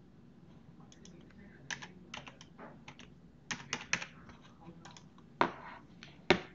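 Typing on a computer keyboard: a quick, irregular run of key clicks, then two louder clicks near the end.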